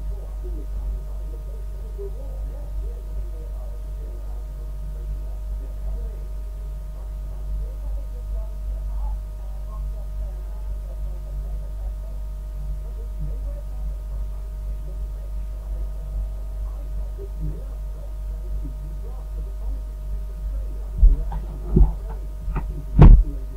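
Steady low electrical hum with faint steady tones above it, picked up by a recording microphone. Near the end come three short thumps, the last the loudest.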